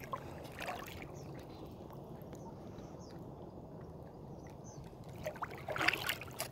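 A paddle dipping into and pulling through shallow lake water, with light splashes about a second in and louder splashing and dripping near the end, over a steady low rumble.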